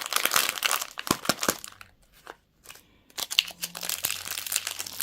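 Candy wrapper crinkled by hand: dense crackling for the first second and a half, a short pause, then more crinkling in the second half.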